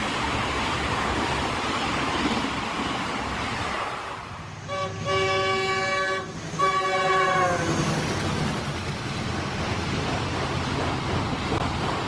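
Indian Railways express coaches rushing past a platform, a steady roar of wheels on rails. About halfway through, a locomotive horn sounds two long blasts, the second sagging in pitch as it ends, and then the rumble of a passing train carries on.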